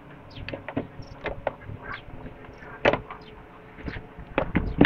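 Irregular light metal clicks and clinks as the shuttle race assembly of a household sewing machine is handled while being taken apart, louder knocks about three seconds in and near the end.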